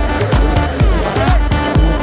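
Electronic dance-pop music with a steady kick drum beating about twice a second under synth chords.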